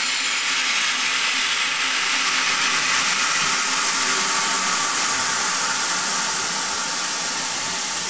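Steam hissing steadily from a standing steam tank locomotive, escaping low down near the front of the engine.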